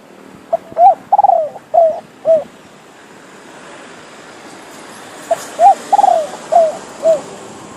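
Captive decoy spotted dove cooing: two phrases of about five notes each, the second coming about five seconds after the first.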